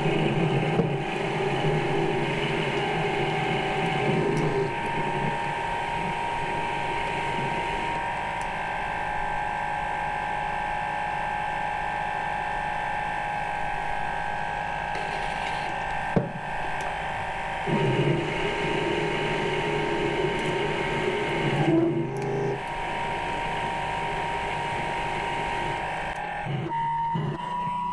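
Small metal lathe running steadily with a high motor whine while a carbide tool takes light passes of about ten thousandths of an inch off a mild steel rod. A lower hum comes in for a few seconds twice, at the start and about two-thirds through, and there is one sharp click around the middle.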